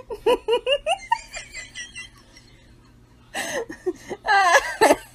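A person laughing: a quick run of short giggles, then louder, longer laughter a little over three seconds in.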